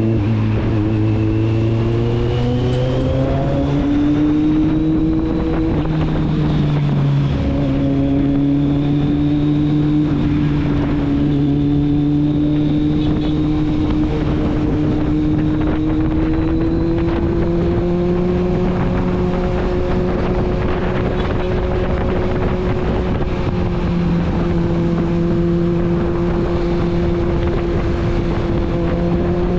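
Kawasaki Z750's inline-four engine and exhaust running, its note climbing over the first few seconds and then holding fairly steady with small swells in pitch.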